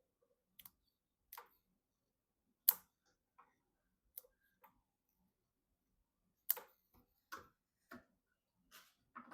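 Scattered light clicks and taps of computer parts being handled and fitted, with dead silence between them; the two loudest come about two and a half and six and a half seconds in.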